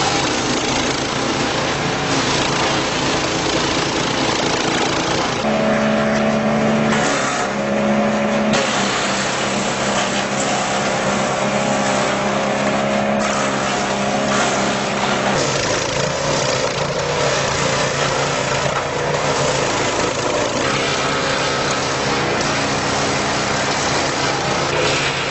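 The 15 hp engine of a wood chipper-shredder running steadily at high speed, with a dense rushing noise over its hum.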